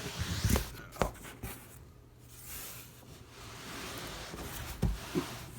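Cardboard box being handled and turned over: scraping and rustling, with a few knocks about half a second in, at one second and near the end.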